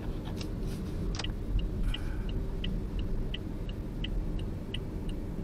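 Steady low road and engine rumble inside a Toyota Vios's cabin as it drives slowly, with the turn-signal indicator ticking evenly at nearly three ticks a second from about a second and a half in, as the car is about to pull over.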